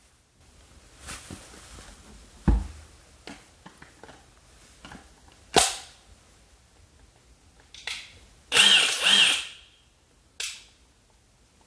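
A RIDGID 18-volt brushless half-inch impact wrench being handled: scattered knocks and clicks. A little past the middle the trigger is pulled and the wrench spins for about a second, with shorter blips just before and after.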